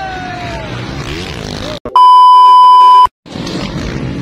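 A motocross bike engine's whine falls in pitch and fades in the first second over steady track noise. About two seconds in, a loud, steady, one-pitch electronic beep lasts about a second, with a short dead gap on either side.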